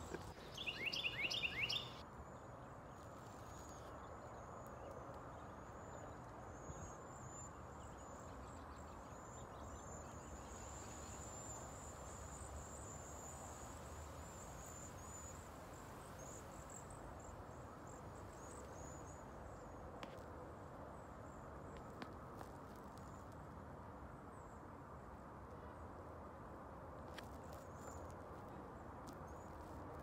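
Faint outdoor ambience: a steady soft background hiss, with a high, thin, wavering trill that runs through the first half and then fades out, and a few faint clicks later on.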